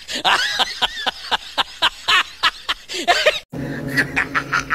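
Rapid string of duck-like quacks, about five a second, used as a comic sound effect. It cuts off abruptly about three and a half seconds in and gives way to a different sound effect: quick high chirps over a low steady hum.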